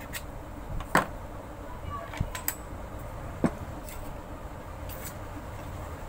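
A few short, sharp metal clicks and knocks as a steel mixer-grinder jar and the tool in its base are handled during the refit of its bush and blade shaft. The loudest comes about a second in, and three fainter ones follow over the next few seconds, over a low, steady background hum.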